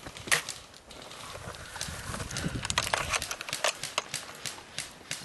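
An irregular run of sharp clicks and snaps, thickest from about two seconds in to near the end, over a low rustle.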